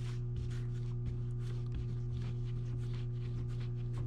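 Hands rolling a thin clay coil on a damp tabletop: soft rubbing swishes, about three a second, over a steady low hum.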